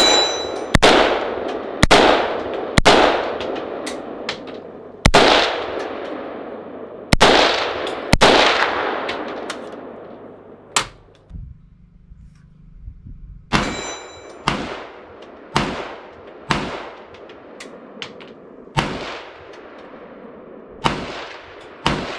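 Unsuppressed shots from a Palmetto State Armory 300 AAC Blackout AR pistol, fired one at a time about a second apart, each sharp crack followed by a long echo. There are about a dozen shots, with a pause of a couple of seconds about halfway.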